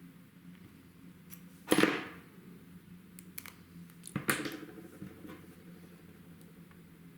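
Two sharp cracks from a hobby spot-welder board discharging through the electrodes, about two and a half seconds apart, each with a brief crackle: welding 0.15 mm nickel strip onto battery cells. A faint steady hum and a few light clicks lie underneath.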